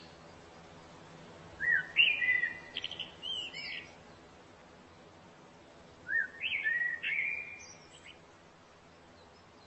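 A songbird singing two short phrases of quick chirping, whistled notes that slide up and down, the first about a second and a half in and the second around six seconds in, over a faint steady background hush.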